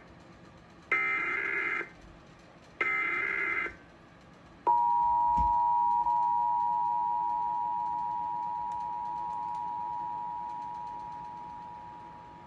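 Emergency Alert System test: two short bursts of SAME header data, about a second in and near three seconds, then the two-tone EAS attention signal starts just before five seconds in and holds one steady chord while slowly fading in volume.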